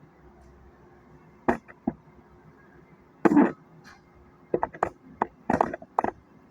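Irregular knocks and clatters of hard objects being handled, about a dozen in all, starting about a second and a half in and bunching up toward the end.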